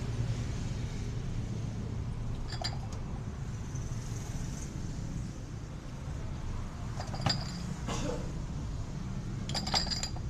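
Dishes and utensils clinking a few times, short bright strikes of metal or crockery, over a steady low rumble.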